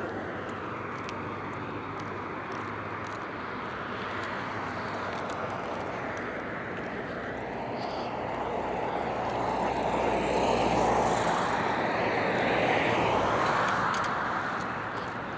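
Road traffic going by: a steady rush of passing cars, swelling as a vehicle comes past about two-thirds of the way in, then easing off.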